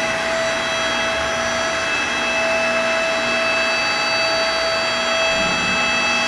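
FPEC vacuum paddle blender's lid drive running as the stainless steel lid lowers shut: a loud steady machine whine with several fixed high tones over a running hum.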